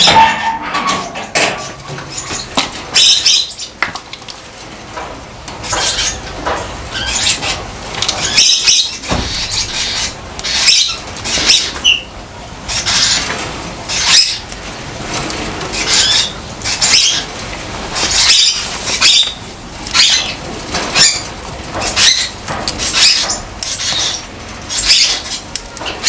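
Crow moving about in a wire cage: a string of short rustling wing flaps and scuffs, roughly one a second.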